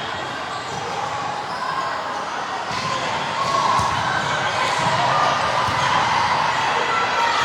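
Basketball bouncing on a gym floor during a game, over a steady murmur of players and spectators.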